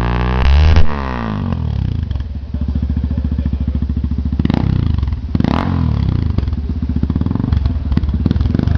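Yamaha Teneré 250 single-cylinder engine running through a Roncar Coyote TRS aftermarket exhaust: held at high revs, the revs drop about a second in and it settles into an even, pulsing idle. Two short blips come near the middle.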